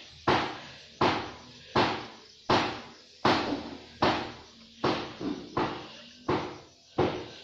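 A series of sharp, evenly spaced knocks, about one every three-quarters of a second, each dying away quickly.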